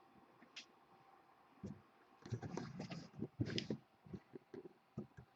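Soft handling noises, a cluster of light knocks, clicks and rustles, as a trading-card hobby box is picked up and handled.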